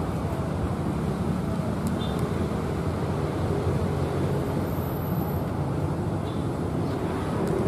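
KRL commuter electric multiple unit (ex-JR 205 series) approaching along the track, a steady low rumble, mixed with wind buffeting the microphone.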